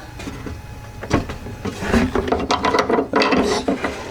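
Irregular hard clicks and knocks of a plastic window-regulator clip being pushed and worked into place inside a car door, starting about a second in and running on to near the end.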